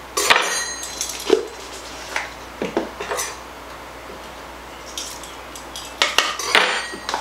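Metal measuring spoon clinking, tapping and scraping against a cornstarch container and a mixing bowl as teaspoons of cornstarch are measured out. A scattered series of short clinks, with louder ringing clinks about a third of a second in and again about six seconds in.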